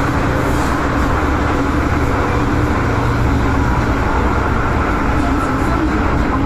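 MTR M-train electric multiple unit running at speed through an underground tunnel: a steady, unbroken rumble of wheels on rail with a faint steady tone running through it.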